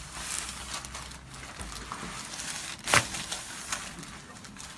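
Rustling and shuffling of a patient turning over on a chiropractic treatment table, with one sharp, loud knock about three seconds in.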